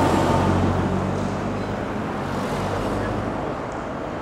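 Road traffic: a motor vehicle's engine hum, strongest at first and fading away over the first three seconds, over a steady background of traffic noise.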